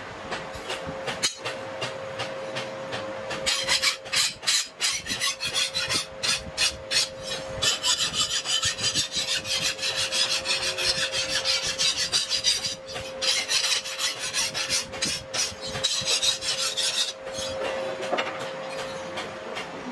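Flat hand file scraping along the edge of a spring-steel knife blade in quick back-and-forth strokes, filing in the edge bevel. The strokes come in earnest a few seconds in and stop shortly after the three-quarter mark, over a faint steady hum.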